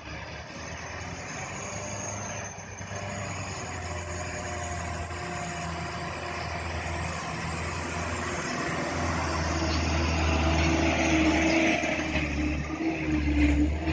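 Heavy truck crane engine running steadily, growing louder over the last few seconds.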